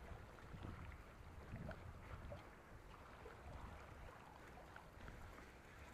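Faint low rumble and light splashing of a mountain bike rolling through a shallow river crossing and wet sand, with scattered small ticks from the bike.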